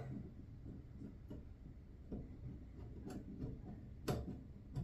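Fingernail scraping and picking at old Teflon (PTFE) tape on a shower arm's threads: faint scratching with a few light clicks, the loudest about four seconds in.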